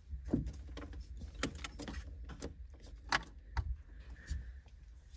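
Car keys jangling and clicking as the ignition key of a Fiat 850 Sport Spider is put in and turned to on: a string of separate clicks and rattles.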